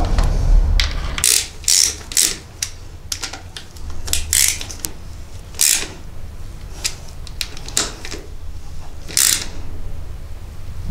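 Hand socket ratchet clicking in short, irregular runs while tightening the 8 mm oil filter cover bolts on a motocross engine.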